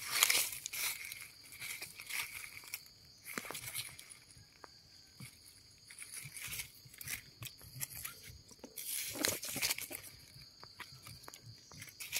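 Dry leaf litter rustling and crackling as a hand digs into the forest floor and pulls termite mushrooms from the soil, with scattered sharp crunches. The handling noise is heaviest near the start and again a little after the middle, over a faint steady high whine.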